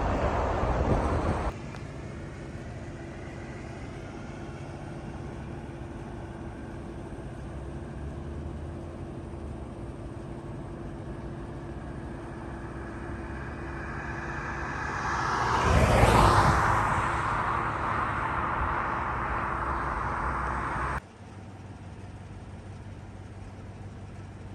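A motor vehicle approaches and passes close by, loudest about sixteen seconds in, over a steady low hum. The sound cuts off abruptly about twenty-one seconds in.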